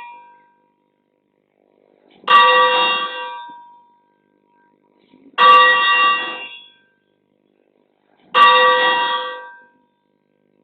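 A church bell struck three times, about three seconds apart. Each stroke rings out with several tones at once and fades over about a second and a half. The fading tail of an earlier stroke is heard at the start.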